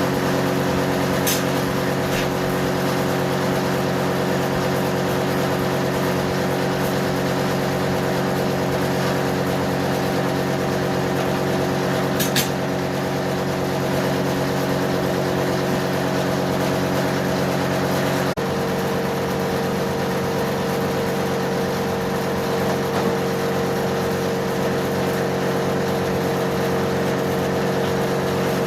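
Steady machine hum with several fixed tones, like an engine or a large fan running continuously. About 18 seconds in there is a short click and the hum's tones shift slightly, then it runs on steadily.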